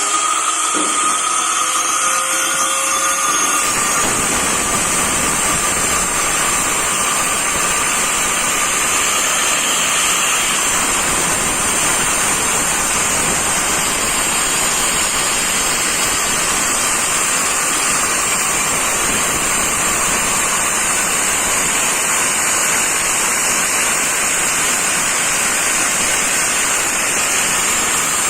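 Angle grinder running under load, its abrasive disc cutting masonry: a steady, loud grinding noise. A motor whine stands out over it for the first few seconds, until the sound changes about three and a half seconds in.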